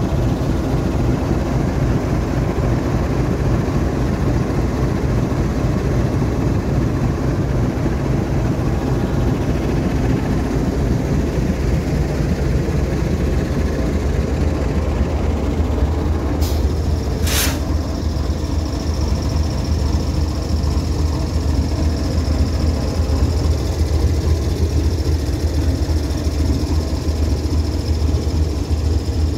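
Diesel locomotive idling with a steady low rumble. About seventeen seconds in a short burst of air hisses, followed by a faint steady high whine.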